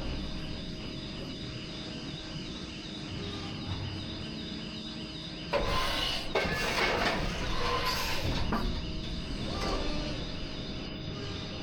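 PET preform injection moulding machine running: a steady mechanical hum with a faint high whine. About five and a half seconds in it grows louder and noisier, with hissing and short squeaky glides.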